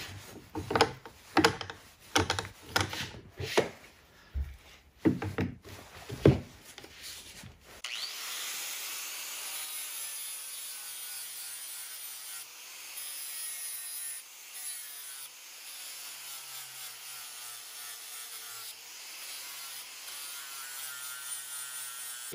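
Rubbing and a run of knocks and clatters from wiping and handling a steel axe head. About eight seconds in, an angle grinder spins up, and its 80-grit sanding disc grinds steadily across the steel of a double-bit axe head.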